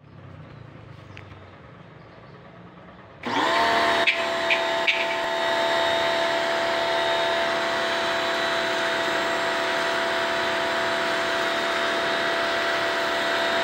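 Kawasaki HPW302 pressure washer starting up suddenly about three seconds in and then running steadily, its motor and pump giving a constant whine, with a few short ticks just after start-up.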